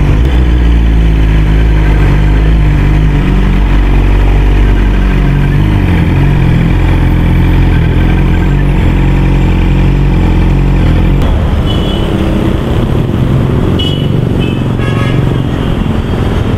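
Yamaha YZF-R6 motorcycle's inline-four engine running at low speed in traffic. About eleven seconds in it gives way to roadside traffic noise.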